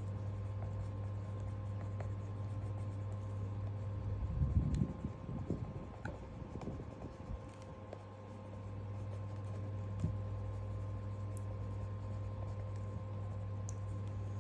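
Coloured pencil scratching across sketchbook paper, shading in small strokes, over a steady low hum. A brief low rumble stands out about four to six seconds in.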